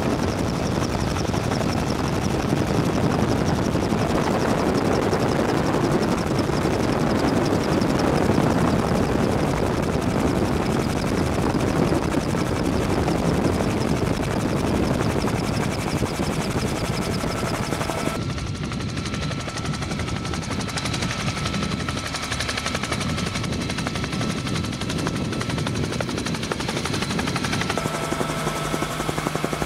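Bell 47 helicopter's engine and rotor, heard from on board in low flight: a loud, steady, dense beating drone. About two-thirds of the way through, the upper range thins out and a faint steady high tone comes through.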